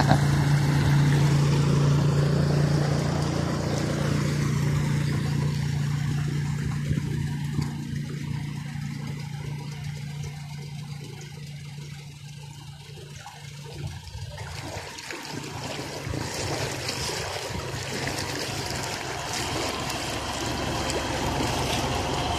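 Floodwater trickling and lapping. At the start a small motorcycle engine is heard running through the water, fading within the first few seconds.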